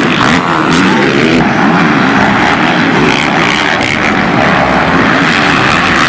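Racing quad bike (ATV) engines running loud, their pitch rising and falling as the throttle is worked.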